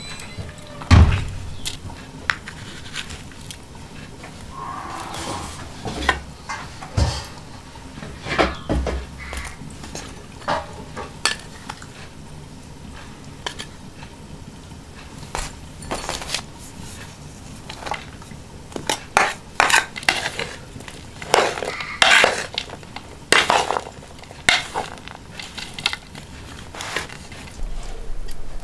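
A plastic spoon scraping and tapping on a ceramic plate and against small glass spice bowls, making irregular clinks and knocks. A low thump about a second in; the clinks come thicker in the last third.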